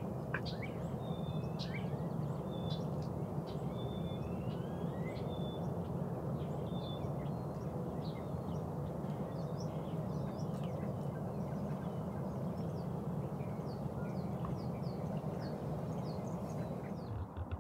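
Birds calling throughout, with many short high chips and a few brief steady whistles, over a steady low rumble.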